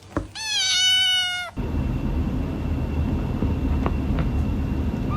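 A cat gives one drawn-out meow lasting about a second. It then cuts to a steady low rumbling noise with a faint high steady whine.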